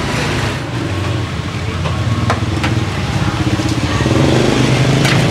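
Motorbike engine running on the street, growing louder near the end, under background chatter, with a few sharp clicks.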